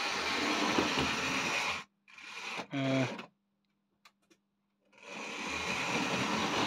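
Tri-ang Railways model tank locomotive running on its track, a steady whirring motor and clatter of small wheels, as it shunts coaches. It goes quiet for a second or two just past the middle, then starts up again and grows louder.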